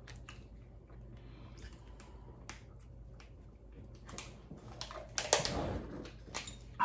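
Eating sounds from ice cream being eaten with spoons: chewing, with scattered small clicks and taps of spoons against the cups. A sharper click comes about five seconds in.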